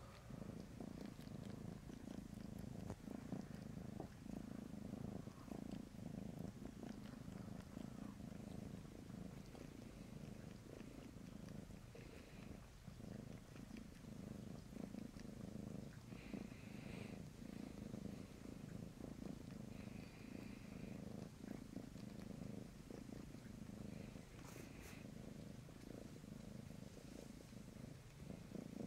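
Domestic tabby cat purring steadily close up while kneading a soft bed, a low, fast-pulsing rumble that signals a relaxed, content cat.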